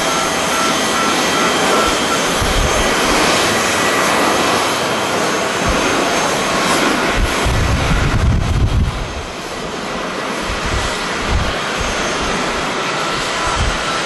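Jet engines of an ANA Boeing 787 (Rolls-Royce Trent 1000s) at take-off power, a steady noise with faint high whining tones as the airliner rolls, lifts off and climbs away, easing a little about nine seconds in. Strong wind buffets the microphone in irregular low rumbles.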